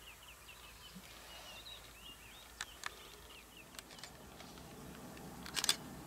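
Quiet bush ambience: faint birds chirping in the background during the first half, with a few sharp clicks, the loudest a quick cluster about five and a half seconds in.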